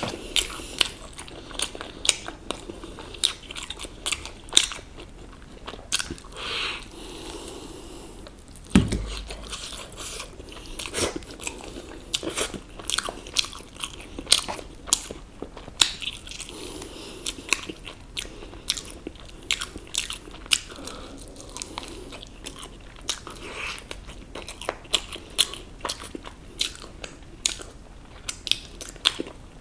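Close-up crunching and chewing of crispy fried chicken, with many sharp crunches of the breading, bite after bite. A single low thump comes about nine seconds in.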